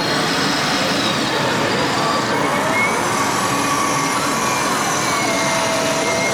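Engine sound of large 1/8 scale RC model trucks, over a steady background of a busy exhibition hall, with a few high held tones coming and going.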